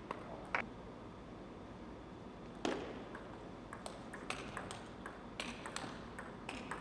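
Table tennis ball clicking off the bats and the table: a couple of single taps and one sharper hit, then a quick rally of crisp clicks, a few a second, from about three and a half seconds in.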